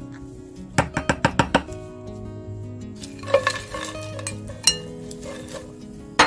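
A quick run of about six knocks about a second in, typical of a spatula tapping a glass mixing bowl of chili-paste sauce, then dried anchovies rustling and clicking as a spatula tosses them in a dry non-stick pan, toasting off their fishy smell. One sharp click near the end.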